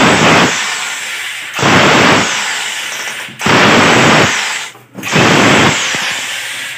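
Corded rotary hammer drill boring the pipe hole through a wall, run in four bursts of about a second and a half each, every burst starting loud and fading off.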